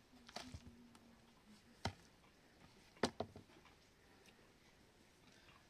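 A few scattered, faint knocks: three short sharp ones about a second apart, then nothing.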